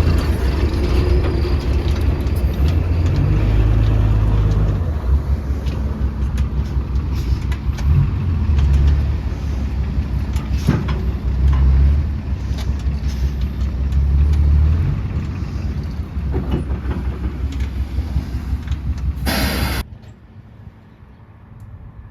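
Heavy diesel earthmoving machinery working, its deep engine rumble swelling and easing again several times as it takes load, with a few knocks. The sound cuts off suddenly just before the end, after a brief hiss.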